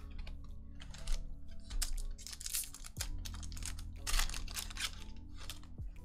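Booster-pack wrapper crinkling and tearing as the pack is ripped open and the cards are slid out, in several short crackly bursts over soft background music.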